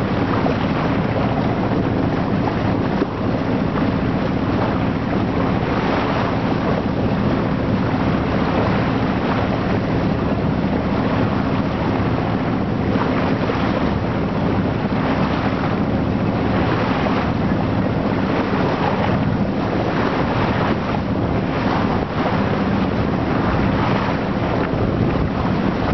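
Boat under way: its engine running steadily, with wind buffeting the microphone and water rushing past the hull.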